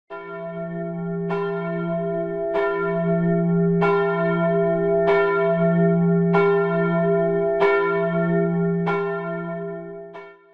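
A church bell tolling, struck about every 1.3 seconds with the tone ringing on between strikes, fading near the end.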